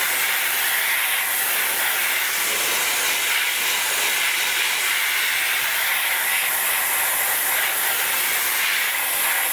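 Dry ice blasting gun spraying a jet of compressed air and dry ice pellets onto a car's rear suspension arm: a steady hiss.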